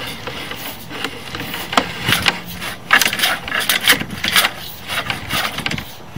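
Sewer inspection camera's push cable being fed down a drain line, rubbing and scraping in quick, irregular strokes as the camera head is run forward.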